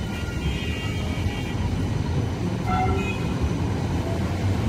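Supercapacitor tram pulling away along the platform: a steady low rumble of the moving tram, with faint high tones over the first second or so.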